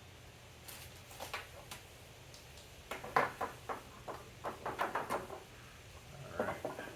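A string of light clicks and knocks as metal parts are handled: a few near the start, a quick cluster in the middle, and a couple more near the end.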